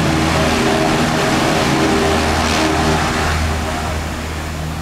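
ATR 42-500 twin turboprop engines and propellers running at taxi power: a steady drone made of several held tones over a rushing hiss, easing off slightly about three seconds in.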